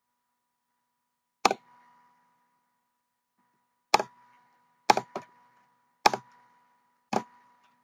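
Computer keyboard keys struck one at a time: six sharp clacks, the first about a second and a half in and the rest roughly a second apart, one of them a quick double. A faint steady high tone runs underneath.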